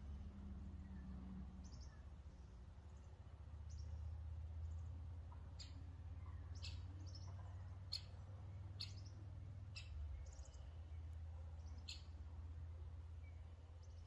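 A small songbird giving short, sharp high chirps: faint and sparse at first, then louder at about one a second from around five seconds in. A low, steady rumble runs underneath.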